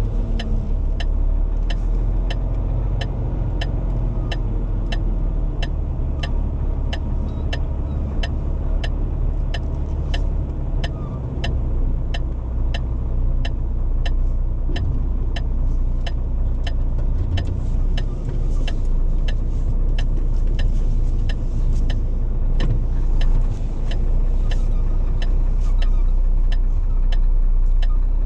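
Rigid HGV lorry running on a narrow lane, a steady low engine and road rumble heard inside the cab. Over it, a regular sharp ticking, about three clicks every two seconds.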